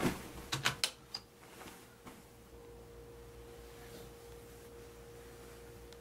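A few sharp clicks and rustles in the first second, then a steady, single-pitched pure tone held as an eerie drone.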